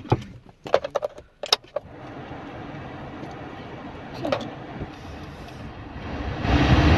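A few short clicks, then a steady hum inside a car cabin. About six and a half seconds in, the Suzuki Ertiga's air-conditioning blower comes on at its highest fan setting (4), a loud, even rush of air.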